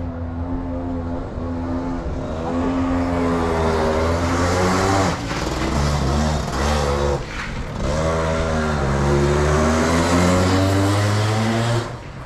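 Go-kart engines running and revving, the pitch climbing and falling back repeatedly, dropping sharply about five seconds in and again near the end.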